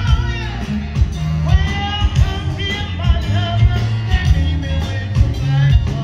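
A live blues band playing through a PA, with electric guitars, bass and drums under a woman's singing voice that holds and slides between notes.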